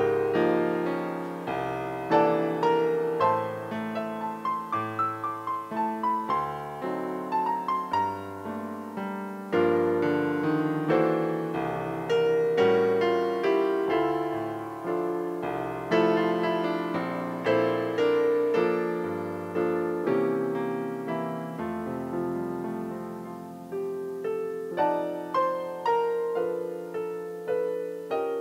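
Solo piano playing a slow piece of chords under a melody, each note fading after it is struck, with a quicker run of notes about five seconds in.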